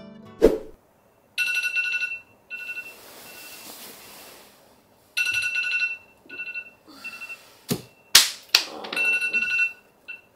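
Phone alarm ringing in short repeated bursts of a bright, steady tone. A thump comes near the start, and two sharp knocks about two-thirds through are the loudest sounds.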